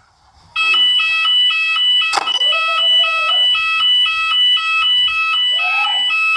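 Shop fire alarm's voice-evacuation system sounding its alert tone over the public-address speakers: two high pitches alternating quickly, starting about half a second in. This is the warning tone played between its recorded evacuation messages. A short swooping sound cuts across it about two seconds in.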